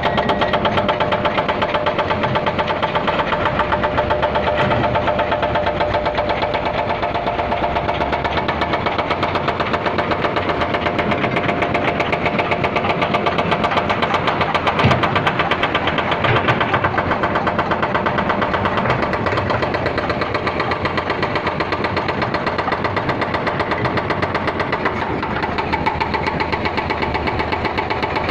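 Heavy diesel engine running steadily, with a steady whine at one pitch over the engine's rapid pulse and a single sharp knock about halfway through.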